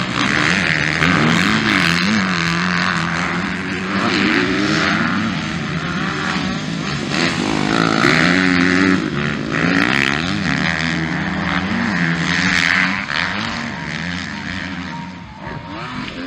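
Motocross bikes revving through a dirt-track corner. The engine pitch rises and falls again and again as they accelerate and back off.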